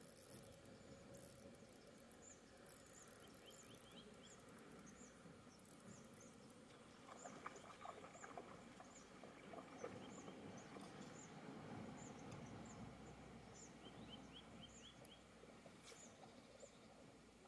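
Faint outdoor ambience: many short, high bird chirps repeating throughout, with a few quick trills, over a low rushing background that swells around the middle.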